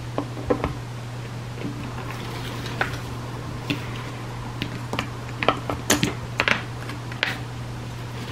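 Irregular light clicks and knocks of chainsaw parts being handled and fitted as the crankshaft goes back into a Husqvarna 240's crankcase, bunched together a little past halfway. A steady low hum runs underneath.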